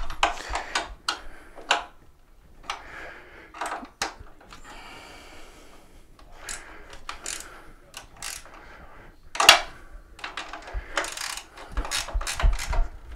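Adjustable wrench working on bolts in a mobility scooter's frame: irregular sharp metallic clicks and clinks with short scrapes between them, the loudest clink about nine and a half seconds in.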